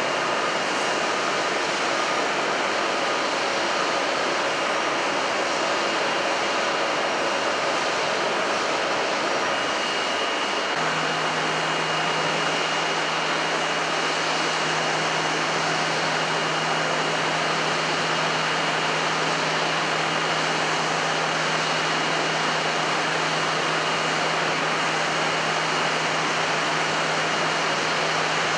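Droop & Rein D 175 V horizontal boring and milling machine running: a steady whirring noise with a few faint steady tones. A steady low hum comes in about eleven seconds in.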